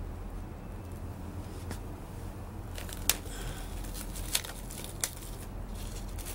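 Clear plastic cling film crinkling and rustling under the hands as it is pulled tight over a seed tray and held with elastic bands, with three sharp clicks around the middle, over a steady low rumble.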